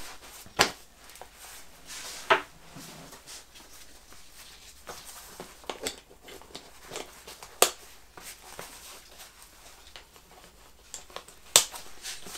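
Nylon plate carrier being fitted on the body and its side straps adjusted: soft rustling of fabric and webbing with a few sharp, scattered clicks from its fittings being handled.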